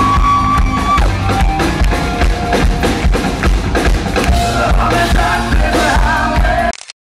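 Live rock band playing loud with a drum kit, recorded from the audience: a long held note at the start, then the lead singer comes in over the band. The sound cuts off abruptly near the end.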